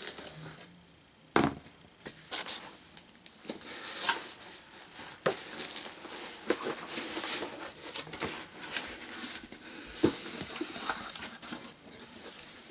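A cardboard subscription box being opened by hand: irregular crinkling, rustling and tearing of packaging, with a sharp knock about a second and a half in and another near ten seconds.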